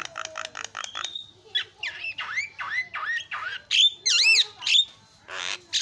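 Javan myna calling in a varied run: a fast rattle of about eight clicks in the first second, then a string of swooping whistled notes, a wavering whistle about four seconds in, and a short harsh note near the end.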